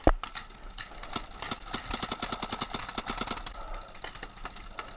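Paintball markers firing, a sharp loud pop right at the start and then rapid strings of shots at about ten a second.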